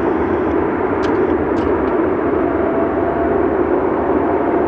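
Jet airliner's engines roaring at takeoff thrust close by, a steady dense rumble.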